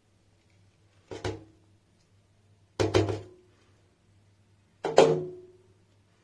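Three hollow knocks about two seconds apart, the middle one a quick double strike, each with a short ringing tone after it, over a faint steady low hum.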